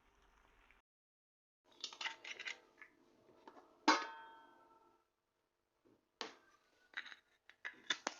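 Kitchen utensils and dishes clinking and knocking in short clusters, with one louder metallic strike about four seconds in that rings on briefly.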